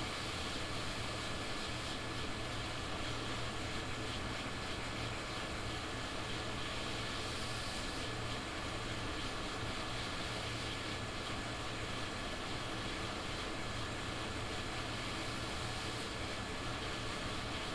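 Steady rushing of air from a fan or blower, even and unchanging, with a low hum and a faint high steady tone under it.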